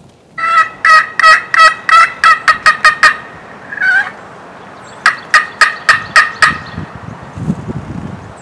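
Turkey yelping: a run of about ten loud, short yelps that speed up over the first three seconds, a single longer note about four seconds in, then a second run of about six yelps.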